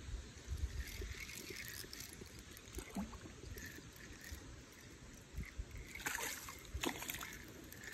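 Faint outdoor background: uneven low rumble of wind and handling on the phone's microphone, with a few light clicks and rustles about six to seven seconds in.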